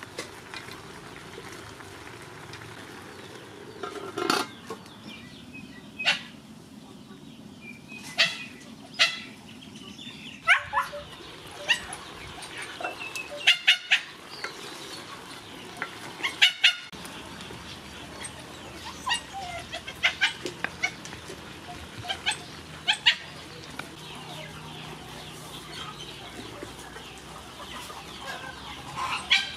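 Domestic fowl clucking now and then: short, sharp calls scattered through, over a steady low background.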